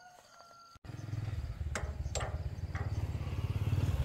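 An engine running with a steady low, rapid chugging pulse. It starts abruptly about a second in and grows louder, with a few sharp clicks over it.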